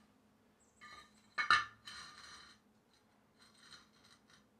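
A steel column base plate clanks down onto a concrete footing about a second and a half in, ringing briefly, then scrapes across the concrete as it is slid into position; a fainter scrape follows near the end.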